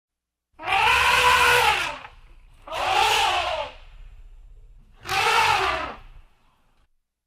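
Elephant trumpeting three times: loud, brassy calls of about a second each that rise and then fall in pitch, over a rough low rumble. The calls come about a second apart.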